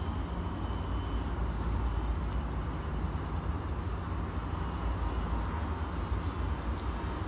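Steady low rumble of open-air city background noise, without distinct events.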